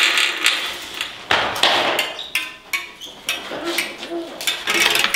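Irregular metallic knocks and clicks of bicycle repair work on a rear wheel held in a repair stand, a dozen or so sharp hits spread unevenly.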